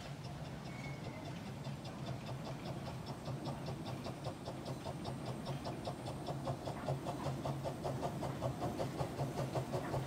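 Narrow-gauge steam locomotive approaching with rapid, even exhaust beats that grow louder as it nears, over a steady low hum.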